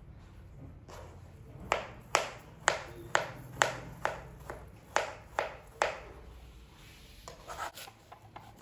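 Kitchen knife chopping mango on a plastic cutting board: about ten sharp knocks of the blade hitting the board, roughly two a second, starting a couple of seconds in and stopping about two seconds before the end.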